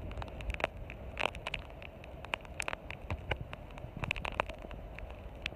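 Storm wind rumbling on the microphone, with irregular sharp crackles and clicks of rain striking the vehicle.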